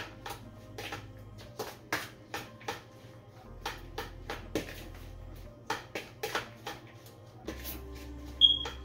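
Spoon clicking and knocking against a mixing bowl as chopped vegetables are stirred and tossed, a few knocks a second, with one louder knock near the end. Quiet background music runs underneath.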